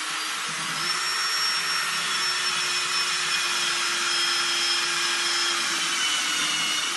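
Electric drill running continuously as a 5 mm wood bit bores through an MDF paneling strip, a steady whine that rises slightly in pitch about a second in.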